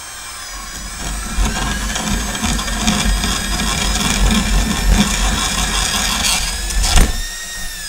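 Power drill whining as a large bit bores through the plastic wall of a milk crate, with a grinding rasp of plastic being cut. About seven seconds in there is a sharp knock, then the motor's whine falls in pitch as it winds down.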